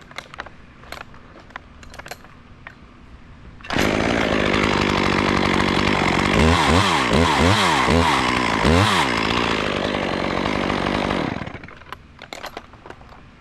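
A chainsaw comes in suddenly about four seconds in and runs loud. Its pitch dips and rises several times in the middle, then it stops a couple of seconds before the end. Light clicks and knocks come before and after it.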